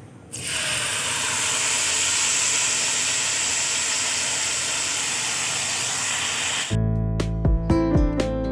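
A liquid poured into hot oil in a non-stick frying pan sizzles with a loud, steady hiss as it bubbles and foams up. The sizzle cuts off suddenly near the end and acoustic guitar music takes over.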